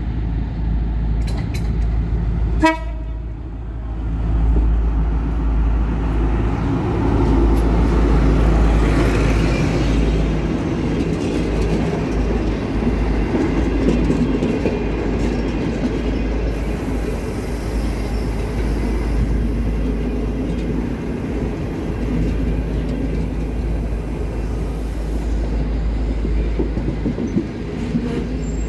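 CNR CKD8H diesel-electric locomotive and its passenger coaches arriving at a station: a steady deep engine rumble with rolling rail noise that builds over the first several seconds and then holds steady. A sharp knock is heard once, about three seconds in.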